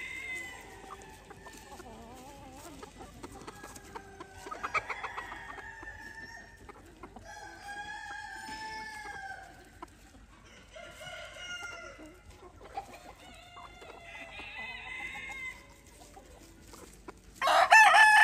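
Ayam Cemani chickens: roosters crowing one after another, with clucking in between, and one loud, close crow starting near the end.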